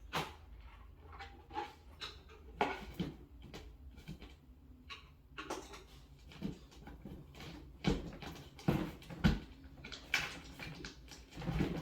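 Irregular knocks and clicks of flat-pack cabinet panels and hardware being handled and pushed into place, with a few heavier thumps in the second half.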